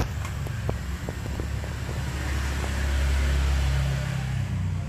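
A low, steady engine hum that grows louder about halfway through, with a few faint clicks.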